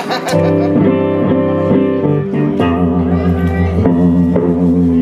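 Blues guitar played live: plucked notes and chords ringing over a held low bass note.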